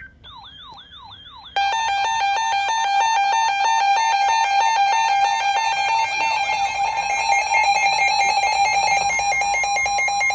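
Emergency Alert System attention signal: a short warbling tone, then about a second and a half in a loud, harsh, steady two-tone alert that holds through the rest. It announces the start of a new alert message.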